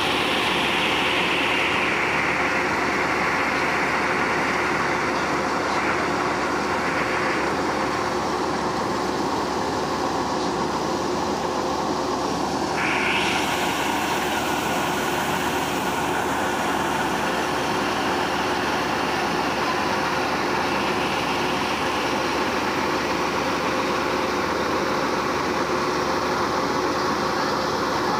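FM World combine harvester running steadily while unloading: the engine and unloading auger hum, and threshed paddy rice pours from the spout onto a heap with a continuous rush.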